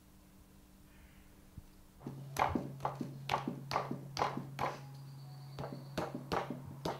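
Wet modelling clay being patted and pressed onto a tall clay sculpture by hand, heard as irregular sharp pats and knocks, two or three a second, starting about two seconds in after a near-silent start, over a low steady hum.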